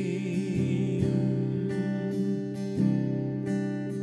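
Worship song with a singer's held, wavering note that fades about a second in, over strummed acoustic guitar and held chords.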